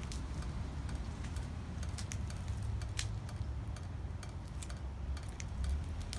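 Scattered sharp ticks and clicks at irregular intervals, a few a second, the loudest about two and three seconds in, over a steady low rumble.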